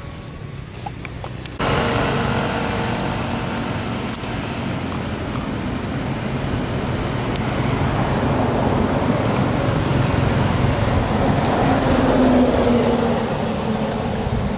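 Steady road traffic noise that starts abruptly about a second and a half in and swells a little toward the end, with a faint low engine hum late on.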